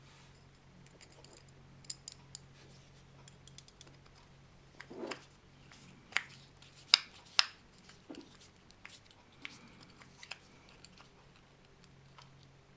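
Scattered small metallic clicks and taps of a screwdriver working the screws and metal clips that hold the air filter onto a Villiers S10 carburettor body, the sharpest few clicks coming about six to seven and a half seconds in. A faint steady low hum lies underneath.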